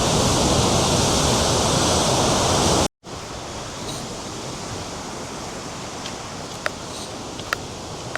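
Big Lake Superior waves surging onto the shore in a strong wind, a loud steady rush. It cuts off abruptly just before three seconds in, giving way to a much quieter outdoor hiss with a few faint ticks.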